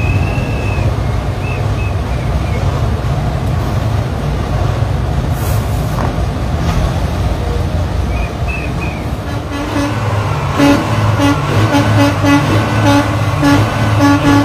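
Semi-truck diesel engines running with a steady low rumble. About two-thirds of the way in, a truck horn starts sounding a quick series of short toots, several a second.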